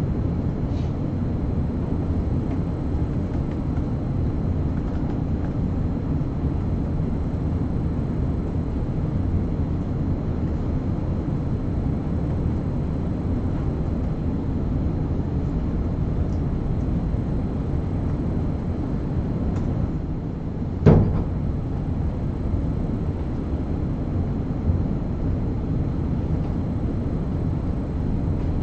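Steady low room noise through a lecture-hall microphone, with a single sharp knock about three quarters of the way through.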